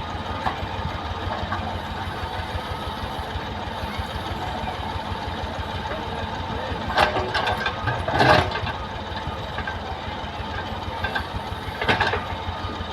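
A heavy machine's engine, a JCB backhoe loader's or a tractor's, running steadily with a fast low chugging. Short, louder noises break in three times: twice in quick succession past the middle, and once more near the end.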